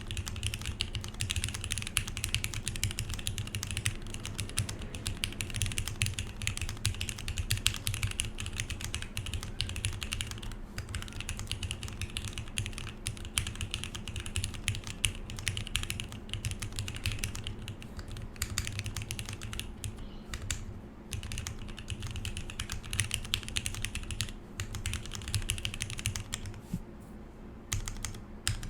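Fast, continuous typing on a mechanical keyboard with lubed Cherry MX Black linear switches, GMK keycaps and a polycarbonate plate in a sandwich-mounted case, giving a dense run of key strikes that thins out briefly a few times.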